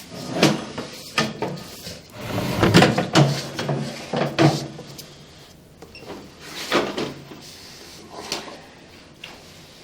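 Irregular knocks and clunks of a sewer inspection camera's push cable being handled and fed through a clean-out into the drain pipe, busiest in the first half and thinning out after about five seconds.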